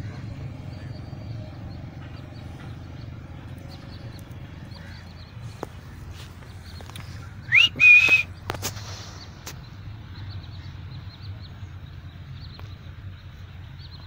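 An Alexandrine parakeet gives one short, loud whistle a little past halfway: a quick rising note straight into a brief held high one.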